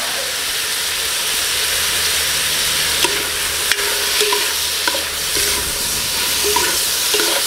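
Cuttlefish pieces sizzling in hot oil in a metal pot while being stir-fried with a metal spoon, which scrapes and clinks against the pot's bottom and sides.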